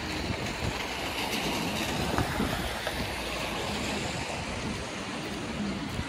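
Steady city street noise, with a vehicle passing by that swells a little in the middle.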